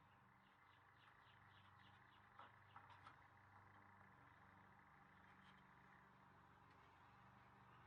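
Near silence: faint background hum with a quick run of faint chirps, about five a second, early in the first three seconds, and a few soft clicks around three seconds in.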